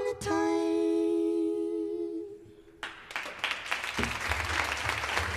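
Two voices holding the song's last note together in harmony, fading out after about two seconds. A moment later applause breaks out and carries on.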